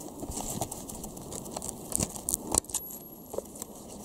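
Footsteps crunching and crackling over dry straw and broken wooden debris, in irregular steps with a sharper knock about two and a half seconds in.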